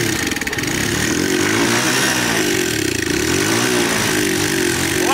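Small single-cylinder motorcycle engine being revved, its pitch rising and falling again and again, about once a second.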